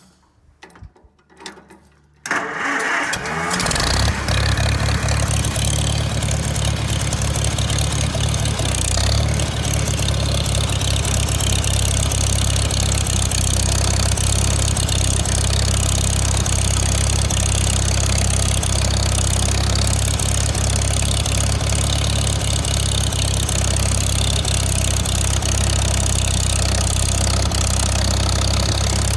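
1953 Farmall Super M tractor's four-cylinder engine starting up about two seconds in, then running steadily as the tractor is driven.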